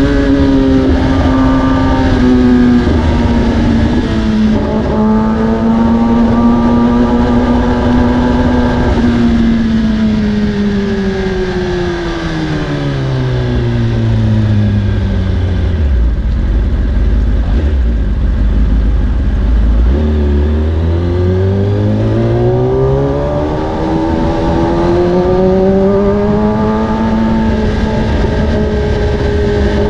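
Kawasaki ZX-10R's inline-four through an Akrapovic carbon exhaust, ridden at steady revs. About nine seconds in, the revs fall away over several seconds to a low note, hold there briefly, then climb back up as it accelerates again. Wind and road noise run underneath.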